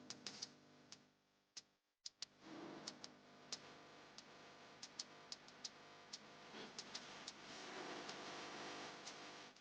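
Soft piano music fades out in the first two seconds. After a brief gap, faint steady surf wash on a beach follows, with many sharp, irregular clicks over it.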